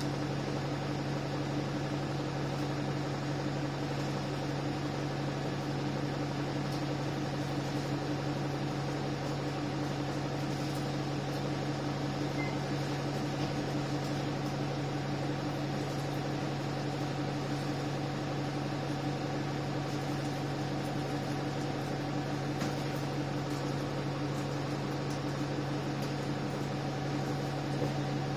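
Alexander Dennis Enviro 300 single-deck bus's diesel engine idling, heard from inside the passenger saloon: a steady hum that holds one pitch throughout.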